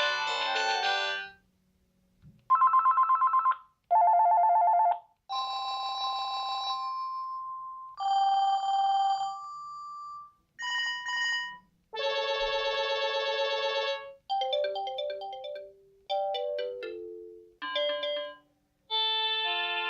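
Panasonic KX-TG6811 cordless phone playing about ten of its built-in ringtones one after another, each cut off after a second or two. They include a quick pulsing ring, a two-note tone, held electronic tones and short electronic melodies.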